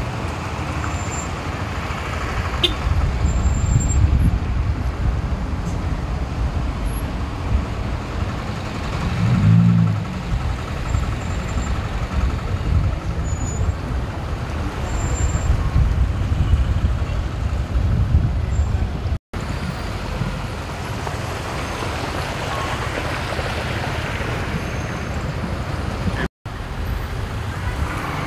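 Road traffic noise from a slow queue of cars and trucks, engines running with a steady low drone. A short pitched sound comes about nine or ten seconds in, and the sound cuts out twice very briefly later on.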